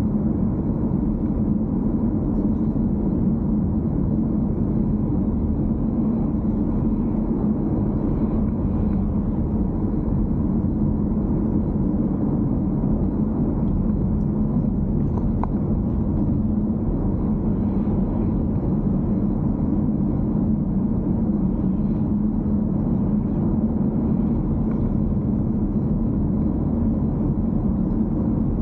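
BMW X4 M40i driving at a steady pace: a constant low rumble of road, tyre and engine noise, with no changes in pitch or level.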